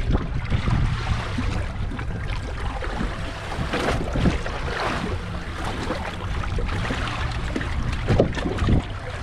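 Wind rumbling over the microphone aboard a boat at sea, with scattered short knocks and clatter from handling on deck.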